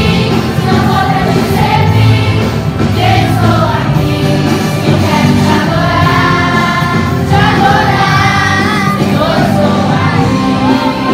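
A group of children and adults singing a gospel worship song together over steady instrumental accompaniment.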